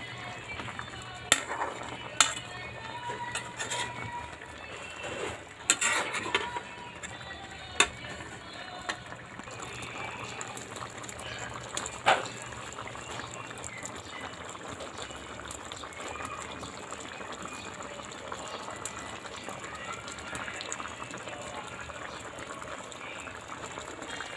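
Coconut milk with squash, string beans and eggplant simmering in a pot, a steady bubbling hiss. A few sharp clicks and knocks come in the first twelve seconds.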